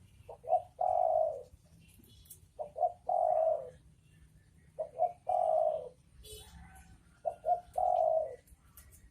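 Spotted dove cooing: four repeated phrases, each two short notes followed by a longer falling coo, about every two seconds.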